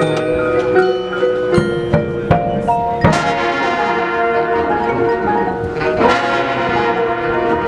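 Marching band playing, with front-ensemble mallet percussion (marimba, xylophone, glockenspiel) and sharp hits through the first few seconds, then the brass and full band coming in loudly about three seconds in.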